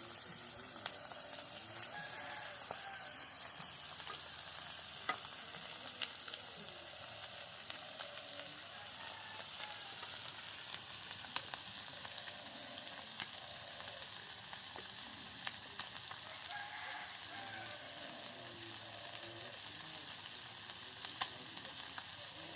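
Mahurali fish frying in hot mustard oil on a tawa: a steady sizzle with scattered sharp pops and crackles.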